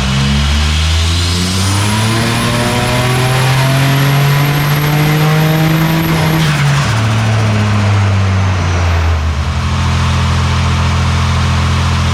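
Turbocharged Holden VY Commodore 3.8-litre V6 doing a full-throttle pull on a chassis dyno, revs climbing steadily for about six seconds with a high turbo whistle rising alongside. Then the throttle is lifted, revs fall sharply, and the engine runs on at lower revs.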